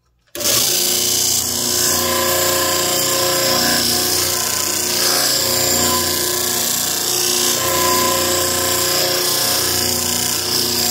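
Electric disc sander running with wood held against the disc, grinding the edges of small wooden parts round; a steady motor hum under a loud grinding hiss that starts abruptly about half a second in.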